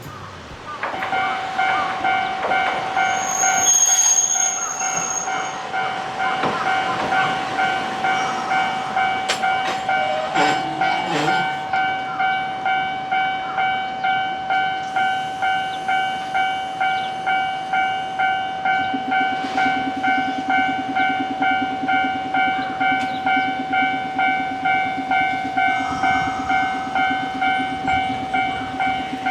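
Japanese railroad crossing warning bell ringing its repeated "kan-kan" tone, about two strikes a second, starting about a second in. A low hum joins from about 19 seconds in.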